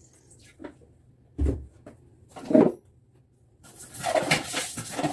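A few separate knocks and clunks from cleaning bottles and the toilet being handled, then, from about three and a half seconds in, a dense scratchy scrubbing inside a toilet bowl.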